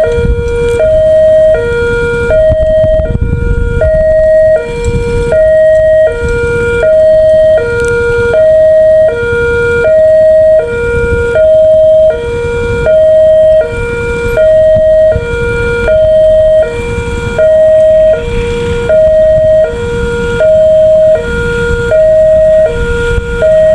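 Railway level-crossing warning siren sounding a loud two-tone hi-lo wail, switching between two pitches about every two-thirds of a second with the higher tone louder. The uploader calls this siren unusual and faulty. A low rumble runs underneath.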